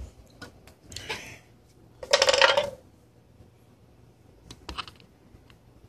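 Hard plastic enclosure parts of a portable hard drive clattering as they are handled and set down on a table. There are light clicks, a short rattle about two seconds in, and a few more clicks near the end.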